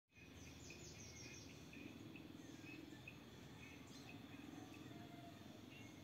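Faint outdoor nature ambience: birds chirping in short, repeated notes, with a quick run of high falling notes near the start, over a steady low background noise.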